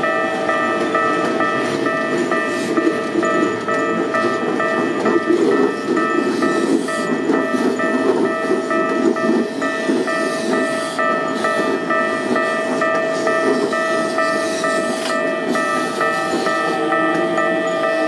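Toei 5300 series commuter train running slowly past on the curve, its wheels and running gear making a steady noise on the rails. Over it, a Japanese level-crossing warning bell rings on without a break, a rapid repeating ding.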